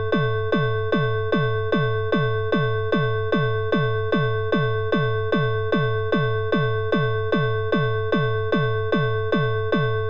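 Synthesized mock emergency-alert (EAS) alarm tone: a steady electronic chord with a sharp ding that drops in pitch repeating a little over twice a second.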